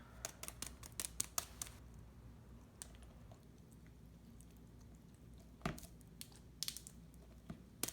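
Canned fiesta corn being emptied into a bowl of salsa ingredients: a quick run of light clicks and taps over the first two seconds, then a few scattered taps later on.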